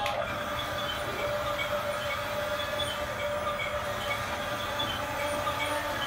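Huina 1569 radio-controlled toy bulldozer driving on its tracks: a steady whine from its electric drive motors and gearbox.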